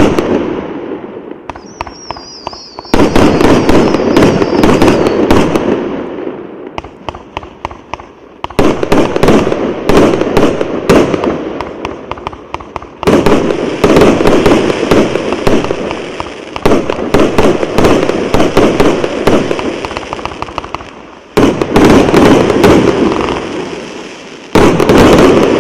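A 90-shot, 1.2-inch consumer fireworks cake firing: volleys of rapid launches and crackling bursts, each starting suddenly and fading away, with new volleys coming in about five times. A wavering high whistle sounds over the first few seconds.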